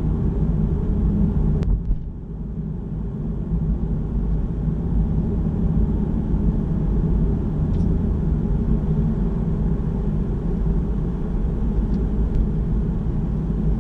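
Car engine and road noise heard from inside the cabin while driving: a steady low rumble, with a short click and a slight dip in level a little under two seconds in.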